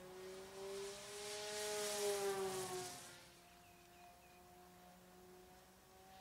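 3D-printed RC model P-47 Thunderbolt flying past: a steady motor-and-propeller whine with a hiss of air swells to its loudest about two seconds in. It then drops slightly in pitch and fades to a fainter steady drone as the plane moves away.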